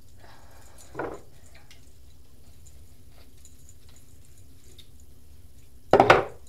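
Handling noise close to the microphone while hair is being braided: faint scattered clicks, a soft rustle about a second in, and one loud short thump near the end.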